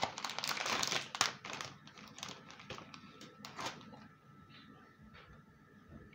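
A cookie packet crinkling as cookies are taken out of it: dense crackling for the first second and a half, then scattered crackles that die away after about four seconds.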